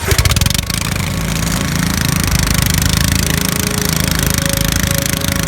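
Small gas engines of riding lawn mowers running at idle, with a rapid, steady chugging of firing pulses. The engines start up abruptly at the beginning.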